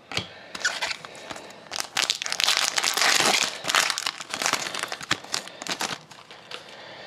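Shiny plastic wrapper of a Fleer Retro hockey card pack being torn open and crinkled by hand. The dense crackle builds about half a second in, is loudest in the middle, and dies down near the end.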